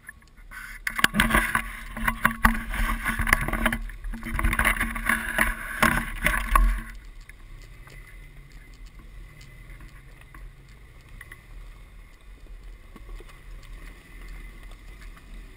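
An off-road 4x4 truck crawling over a rocky trail: loud crunching and knocking for the first several seconds, stopping abruptly, then a quieter steady low engine rumble.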